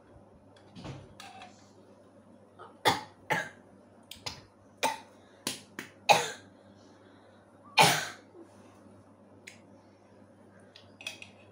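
A boy coughing in a series of short, sharp coughs, about a second apart, after sipping spicy cola.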